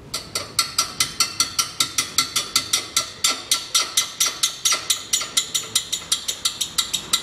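Ratchet wrench clicking steadily, about six sharp clicks a second, as it works a bolt on the front brake caliper mounting.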